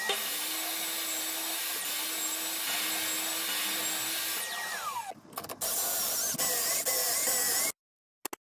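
DeWalt 10-inch table saw running while a crosscut sled is pushed through, then switched off: its whine falls away as the blade coasts down about five seconds in. A second steady burst of machine noise with a wavering whine follows.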